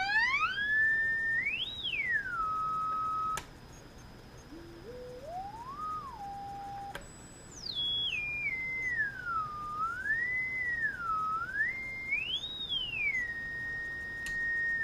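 A single pure whistling tone from an audio signal generator, swept by hand up and down in pitch, from low to very high. It pauses on steady notes, cuts off abruptly twice, and is quieter in the middle. It ends on a steady held note.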